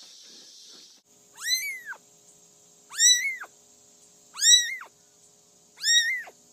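A cat meowing four times, high-pitched calls about a second and a half apart, each rising and then falling in pitch, after about a second of steady hiss.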